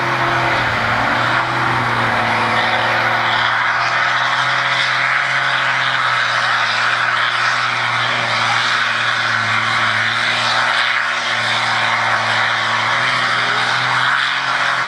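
Ford farm tractor's diesel engine running flat out under heavy load as it pulls a weight-transfer sled in a tractor pull. The engine note sags slightly in pitch about a second in, then holds steady and loud.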